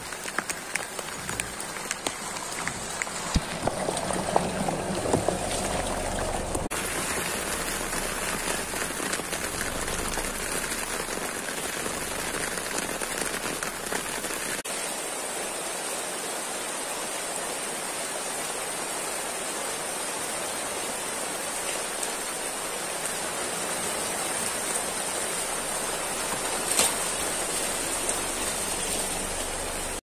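Steady rain falling on leaves and a muddy forest track. For a few seconds near the start, a Renault Kiger's engine and tyres are heard close by as it drives through the mud, then they stop abruptly.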